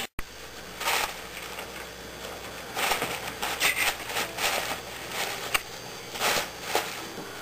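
Wrapping paper rustling and tearing in irregular bursts as small dogs pull and nose a wrapped gift open, with a sharp click about halfway through.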